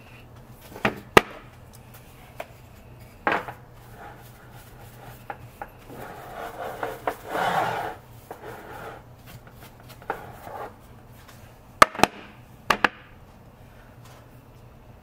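Handling noise at a lever espresso machine during a shot: several sharp clicks and knocks, with a stretch of rubbing in the middle, over a steady low hum.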